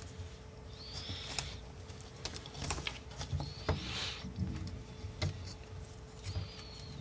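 Electrical tape being pulled and pressed down over motor wires on a carbon-fibre drone arm: small clicks and crinkles from handling, with three short rasps of tape about one, four and six and a half seconds in.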